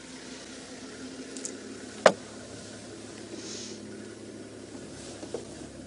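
Low steady hum of an idling vehicle engine, with one sharp click about two seconds in and a softer one near the end.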